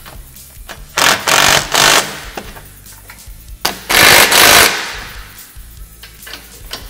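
Cordless impact tool hammering bolts tight on a UTV roll cage: two short rattling bursts about a second in, then a longer burst around four seconds in. This is the final tightening of the carrier's mounting hardware.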